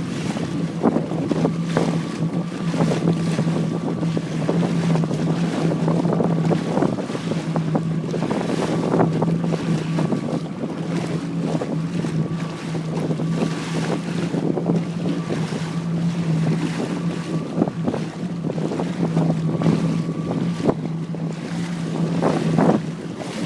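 Jet ski engine idling steadily with a constant low hum, with wind buffeting the microphone and water splashing around the hull.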